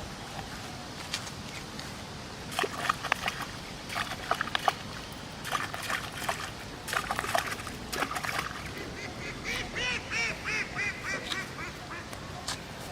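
Scattered sharp clicks and knocks, then a quick run of about a dozen short, repeated calls from a bird near the end.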